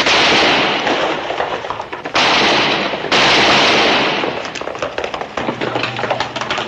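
Three revolver shots, the first right at the start, the next about two seconds later and the last a second after that, each with a long fading echo. They are followed by a rapid clatter of galloping horse hooves.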